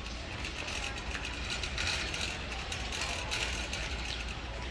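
Shopping cart rolling across a hard store floor, its wheels and frame rattling steadily.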